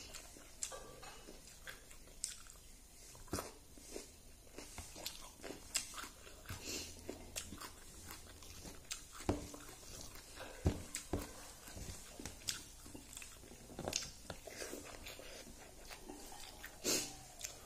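Close eating sounds: a person chewing and smacking mouthfuls of rice and fish curry, with fingers working the rice against a steel plate, in irregular short clicks and taps.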